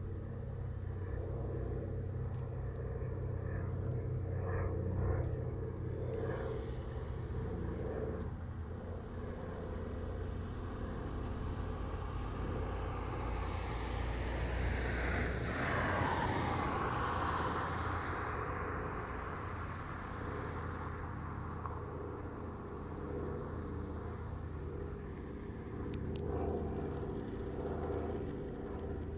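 Douglas DC-3 (C-47 Skytrain) with two Pratt & Whitney R-1830 radial engines running in a flypast. The steady drone grows fuller about halfway through, where its pitch sweeps down as the plane passes, then settles back.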